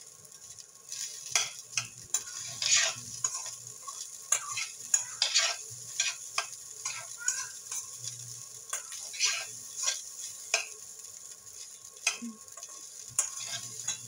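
Metal spoon scraping and turning fried rice in a steel pan, in irregular strokes, over a light sizzle of frying.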